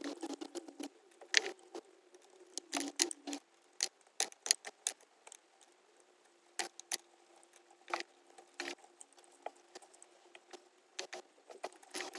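Irregular small metallic clicks and clinks of hand tools and parts being handled at a car's engine, as ignition coil packs are removed. They come in quick clusters in the first few seconds, then more sparsely.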